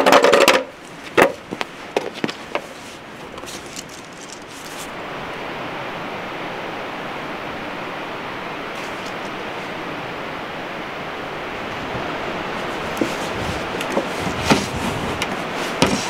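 Steady rushing outdoor noise, with a loud knock and a few short scuffs and knocks in the first two or three seconds, and a few light knocks near the end.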